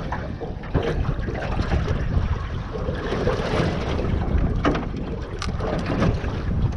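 Wind buffeting the microphone on a small boat at open sea, a steady low rumble, with a few short clicks and knocks scattered through.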